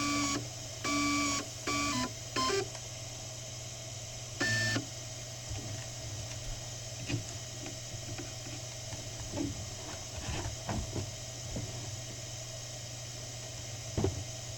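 Stepper motors of a small CNC PCB milling machine whining through four short moves in the first two and a half seconds, their pitch stepping up and down, with a fifth brief whine about four and a half seconds in. Between and after the moves a steady machine hum runs, with scattered faint ticks.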